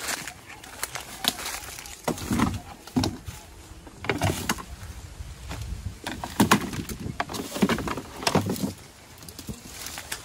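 Irregular knocks, clicks and rustling, with heavier thumps about two, four and a half, six and a half and eight and a half seconds in.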